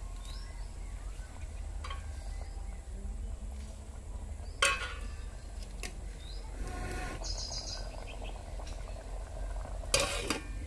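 Two sharp metal clanks against an aluminium cooking pot, about four and a half seconds in and again near the end, the second as a steel lid is brought onto the pot. Birds chirp faintly in the background.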